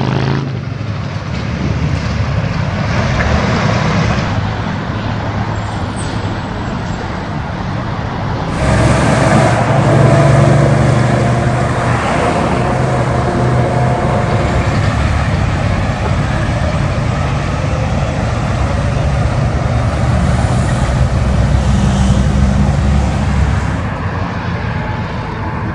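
Tractor-trailer trucks and other road traffic passing: steady engine rumble and tyre noise, which jumps abruptly to a louder, different passing about eight and a half seconds in.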